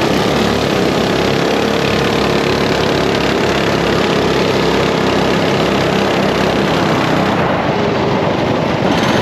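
Small single-cylinder mini bike engines running together during a race, several pitches overlapping and wavering.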